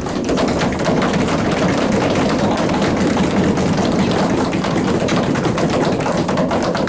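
A small group applauding, a loud, steady patter of many hands clapping.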